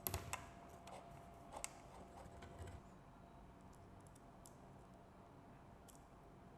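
A few light clicks and knocks from handling the bird feeder and its metal hookup, bunched in the first three seconds, then near silence with faint ticks.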